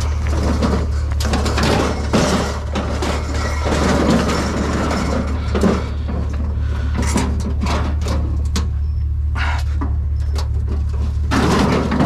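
A metal barbecue grill being pushed and rolled across pavement, its body, lid and shelves rattling, knocking and scraping, busiest at first and again near the end. A steady low hum runs underneath.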